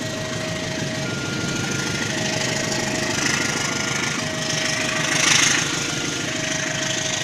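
Level crossing warning alarm sounding its two-tone signal, a low tone and a high tone taking turns about once a second, over the rolling noise of a passenger train crossing; the train noise swells briefly about five seconds in.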